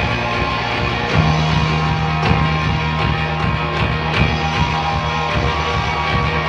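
Rock band playing live: electric guitars over drums in an instrumental passage, with a held low note coming in about a second in.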